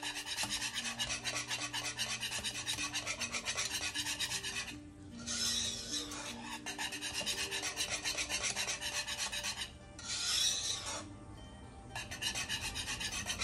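Wire whisk scraping briskly around a metal pot of thick cornmeal porridge, about five strokes a second, to keep it smooth and free of lumps as it cooks. The whisking breaks off briefly twice.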